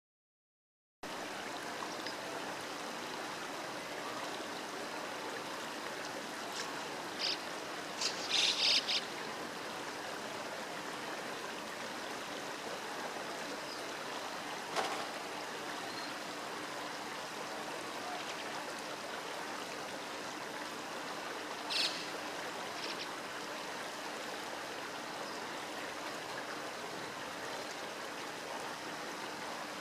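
Steady rush of river water, with a few short, high, thin calls from common kingfishers. A quick cluster of calls comes about eight seconds in, and a single call with a brief follow-up comes about two-thirds of the way through.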